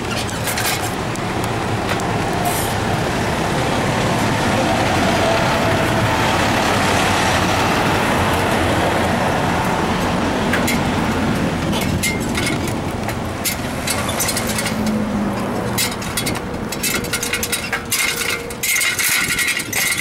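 Wind rushing over the microphone and tyre noise from a bicycle ridden along a concrete sidewalk, with a run of rattling clicks in the last third.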